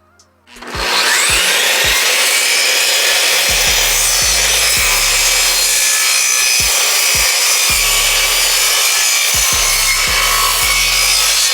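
Router spindle of a CNC machine spinning up about half a second in, then cutting into wood with a loud, steady whine and rasp.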